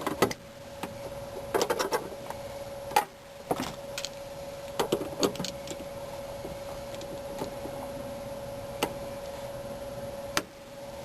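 Irregular metallic clicks and clinks of a wrench and vise-grip pliers on the threaded top of a rear shock absorber shaft, with a steady faint hum underneath.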